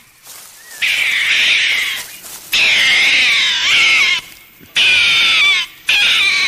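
A cat meowing: four long, drawn-out calls, each gliding up and down in pitch, with short pauses between them.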